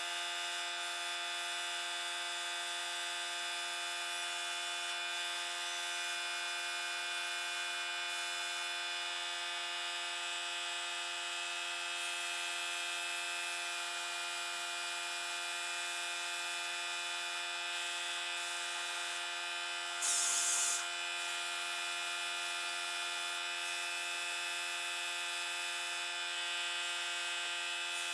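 A small electric power-tool motor running at a constant speed, a steady whine with no change in load. A brief hiss cuts in about two-thirds of the way through.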